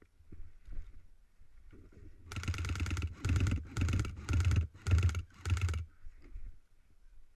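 Airsoft gun firing about six short bursts in quick succession, each lasting a fraction of a second, starting about two seconds in.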